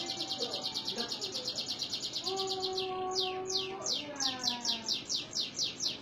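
Domestic canary singing: a fast, even trill of high descending notes, about nine a second, then about three seconds in a slower run of downward-sweeping whistles, about four a second. A fainter steady lower tone with overtones sounds under the song for about a second and a half, starting about two seconds in.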